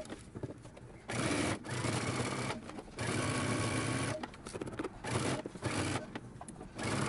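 Electric sewing machine stitching a gathered skirt to a bodice through all layers, running in four short spurts of about a second each with brief pauses between as the fabric is guided.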